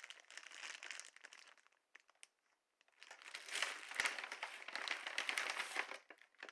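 Plastic food packaging crinkling as it is handled, in two spells with a quiet gap of about a second and a half between them.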